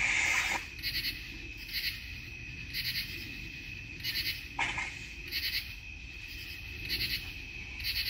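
Night insects: a steady high cricket trill, with a louder pulsed chirp repeating about once a second. A brief burst of noise cuts in once, about four and a half seconds in.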